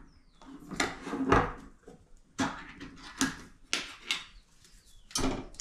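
A can of condensed cream of chicken soup being opened by hand, its metal lid pried up and peeled back. About half a dozen sharp clicks and crackly scrapes come one after another, the loudest about a second and a half in.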